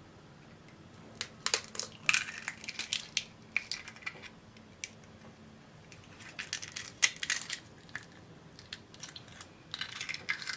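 Eggshells cracking and being pulled apart as eggs are separated, the white dripping from the shell: four clusters of sharp crackles and clicks.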